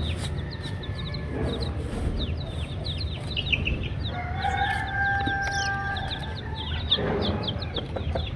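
Chicks peeping continuously in rapid, short falling chirps. About four seconds in, a rooster crows one long call lasting about three seconds.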